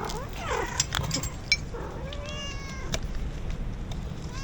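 A cat meowing: short pitched meows at the start and again about two seconds in, with a few sharp clicks about a second in.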